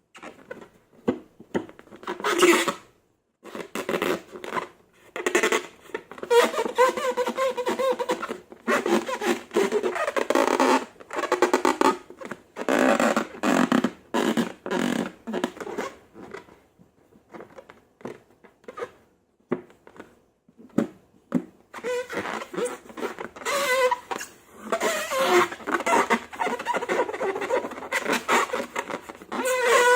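Slime being squished, stretched and folded by hand: irregular wet squelches and crackling clicks, with a quieter stretch of scattered clicks in the middle.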